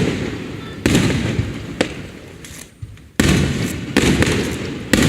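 Aerial fireworks shells bursting in a rapid barrage: loud booms that each trail off in a long rumbling echo, about one a second, with a sharper, shorter crack near the two-second mark.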